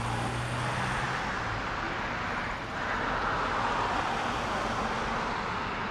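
Airbus A330-300's Rolls-Royce Trent 700 turbofans heard from the ground as the jet climbs away after takeoff: steady jet engine noise that swells slightly about three seconds in.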